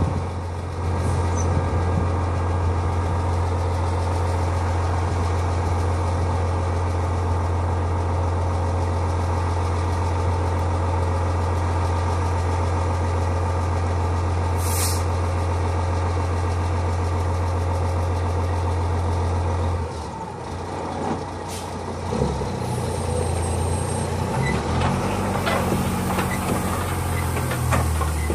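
Heavy-duty wrecker's diesel engine running steadily during a winch recovery, with a short air hiss about halfway through. About two-thirds of the way in the engine note drops, then rises and falls unevenly.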